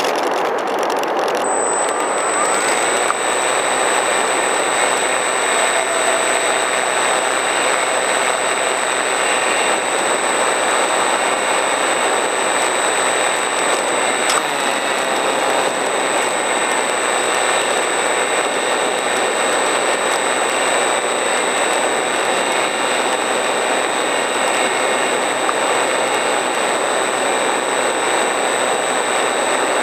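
RC model plane in flight, heard from the camera carried on board: a steady, loud drone of the motor and propeller mixed with rushing air, with a thin high whine coming in about a second and a half in.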